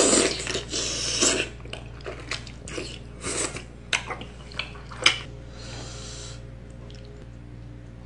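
Loud slurp of tteokbokki from chopsticks in the first second and a half, then close-up wet chewing and mouth sounds with sharp clicks, and a second, softer slurp about five and a half seconds in.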